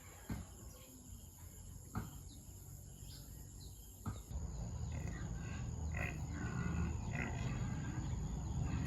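Pigs in a pen: a few sharp knocks in the first half, then from about four seconds in, low grunting with several short, high-pitched piglet squeals.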